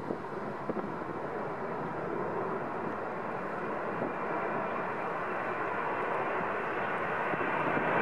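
Jet engines of a Boeing 737 airliner on landing approach, a steady rushing noise that grows gradually louder as the plane comes in low overhead.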